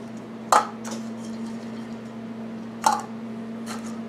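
Sharp clinks of a small glass bowl knocking against a frying pan as grated cheese is tapped and scraped out of it: two loud clinks about two seconds apart, then a few fainter taps near the end.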